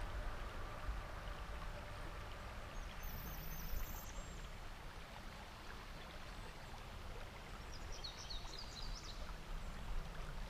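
Steady rush of a shallow river flowing over a riffle. A bird gives a quick run of short high chirps about three seconds in and again about eight seconds in.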